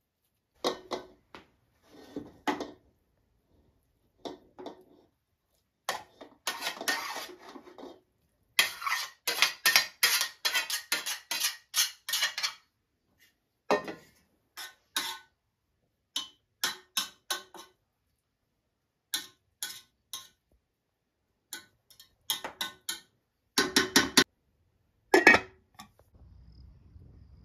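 Metal fork and spoon clinking and scraping against a metal pot and pan as spaghetti is lifted and served, in quick runs of clinks with gaps between. Near the end come a few louder metal clanks with a short ring, as a metal pot lid is handled.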